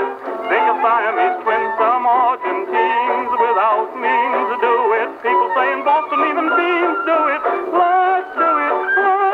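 Edison Diamond Disc record playing on an Edison C19 wind-up acoustic phonograph: a vocal record of singing with instrumental accompaniment. The sound is thin and narrow, with no deep bass and no high treble.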